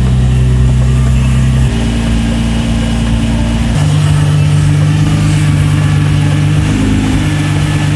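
Background music: deep sustained synth chords that change every couple of seconds.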